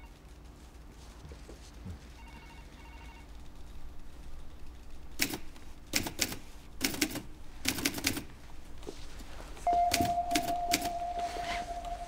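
Manual typewriter keys struck in short, uneven bursts, starting about five seconds in. A steady high tone comes in near the end and holds under the keystrokes.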